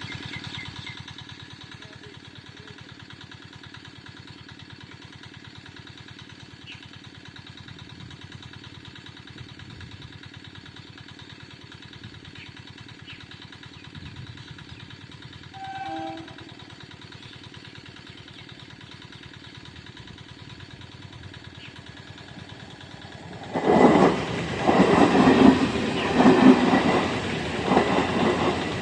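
Steady background hum, then, near the end, an Indian Railways EMU local train suddenly arriving and passing at speed, loud, its wheels clattering rhythmically over the rail joints. A brief tone sounds once a little past the middle.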